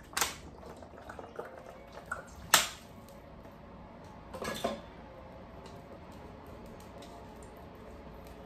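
A spoon clinks against a ceramic mixing bowl as water is mixed into salt-cod fritter batter. There are a few sharp clinks, the loudest about two and a half seconds in, and a short cluster a couple of seconds later.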